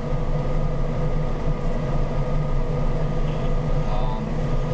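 Car engine idling steadily, a constant low hum heard from inside the cabin.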